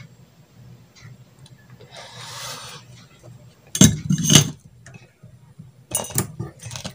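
Hands handling a soldered wire and tools on a workbench: a brief rustle about two seconds in, then clattering clicks and knocks of small hard objects about four seconds in and again near the end, over a low steady hum.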